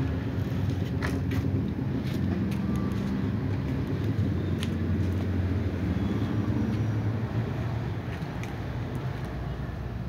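Steady low engine rumble with a wavering hum, with a few faint clicks over it.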